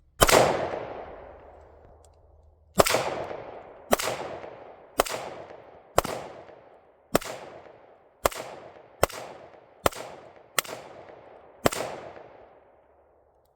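Smith & Wesson semi-automatic pistol fired eleven times at an unhurried pace, roughly one shot a second, each crack trailing off in an echo.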